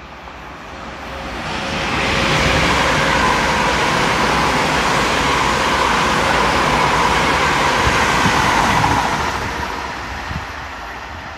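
London Northwestern Railway Class 350 electric multiple unit passing at speed: a rush of wheel-on-rail and air noise with a whine in it builds up, stays loud for about seven seconds, then fades as the train draws away.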